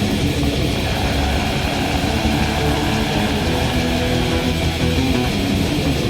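Black metal music: heavily distorted electric guitars playing held chords inside a dense, steady wall of sound.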